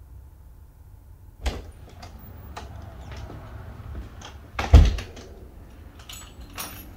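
Interior panelled door being opened and shut. There is a clack about a second and a half in, a loud thump near five seconds in, which is the loudest sound, and a few lighter clicks and rattles near the end.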